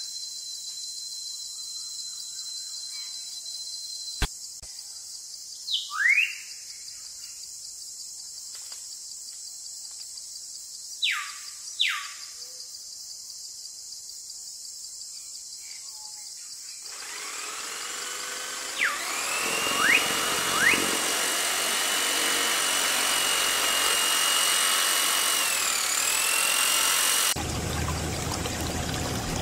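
Birds chirping now and then over a steady high hiss, with a single click about four seconds in. About two-thirds of the way through, a small DC motor starts whining steadily as it drives a miniature water pump through a rubber belt, its pitch dipping briefly near the end. In the last two seconds water pours from the pump's tube.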